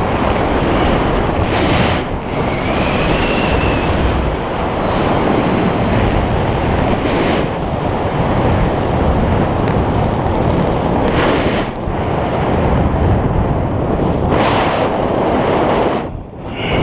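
Loud wind rushing over a skydiver's helmet-mounted camera microphone, buffeting with swells and a brief lull near the end.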